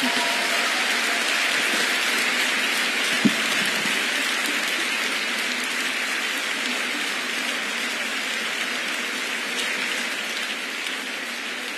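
Large concert-hall audience applauding, a dense steady clapping that slowly dies down towards the end, with a single brief thump about three seconds in.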